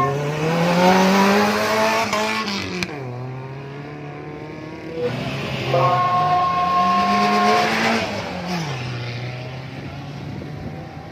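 Two rally jeep engines revving hard in turn as each jeep accelerates away in sand. Each rises in pitch for about two seconds, drops sharply at a gear change and runs on steadily. A steady high tone sounds during the second run.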